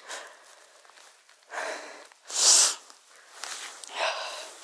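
A person breathing hard in about four heavy, irregular puffs of breath, the strongest about halfway through.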